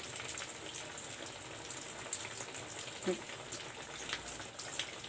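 Hot oil sizzling steadily with small crackles, from breaded chicken cutlets deep-frying.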